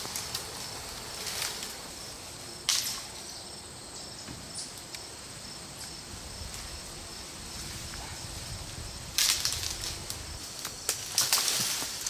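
Cut brush and branches being pulled and broken by hand: a sharp snap about three seconds in, then louder rustling and cracking of leafy branches near the end, over a steady high chirring of insects.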